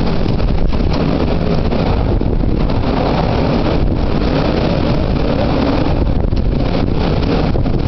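Typhoon wind buffeting the microphone in a loud, steady rumble.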